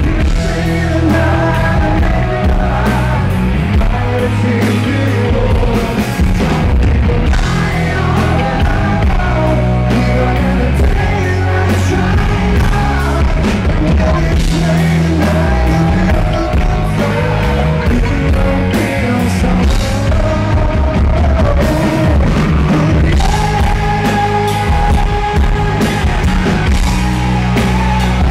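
Rock band playing loud and live: a male lead singer over electric guitars and drums.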